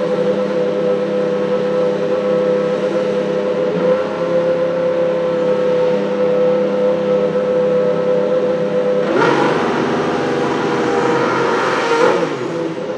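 Mercedes F1 W09's turbocharged 1.6-litre V6 hybrid engine idling steadily while the car is stationary. From about nine seconds in, a louder rushing hiss joins it for about three seconds, then fades.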